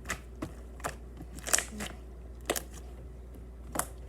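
Homemade slime being worked by hand, giving off a string of sharp, irregular clicking pops, the loudest about a second and a half in.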